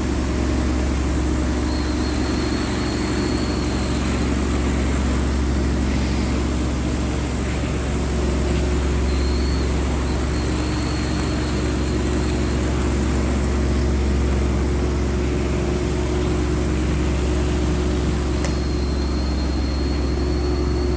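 Truck-mounted steam-cleaning machine running steadily: a low engine drone with a thin high whistle that comes and goes.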